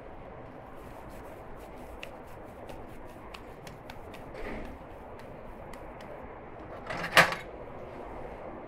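Long steel kebab skewers being handled and raw meat threaded onto them: light metallic clicks and ticks, then a single loud knock about seven seconds in.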